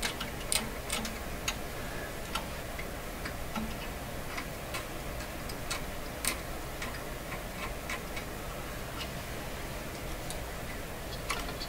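Small hand tool scraping wire ends clean inside a tube radio chassis, heard as irregular light clicks and scrapes at uneven spacing.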